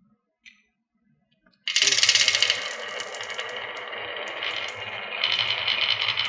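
A small click, then about a second and a half in a sudden dense clatter of many marbles rolling and rattling down a wooden HABA marble-run track, loudest as it begins.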